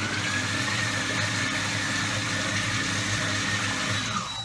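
Monsieur Cuisine kitchen machine blending a grill sauce at speed 5 for a six-second run. The motor whine settles at a steady pitch in the first second, holds, then falls and stops as the blade spins down near the end.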